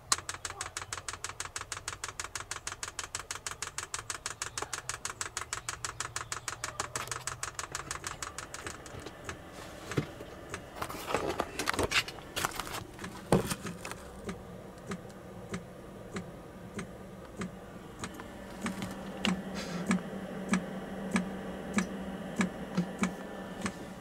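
Diesel heater fuel dosing pump ticking rapidly and evenly, several clicks a second, as it primes the fuel line of air. After about nine seconds there are a few louder knocks of handling, then the pump ticks more slowly, about once or twice a second, and a low steady hum joins it in the last few seconds.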